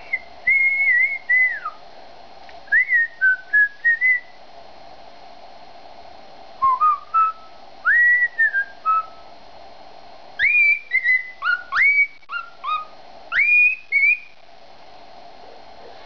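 Male cockatiel whistling his courtship song: clear, gliding whistled notes that rise and fall, delivered in four short phrases with pauses between them.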